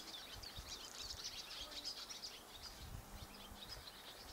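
Songbirds chirping and singing, a steady stream of quick high notes, faint against a low background rumble.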